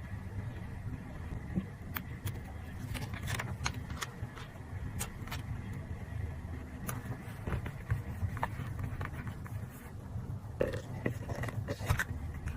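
Paper collage materials being handled by hand: scattered light taps, clicks and paper rustles, busier near the end, over a steady low hum.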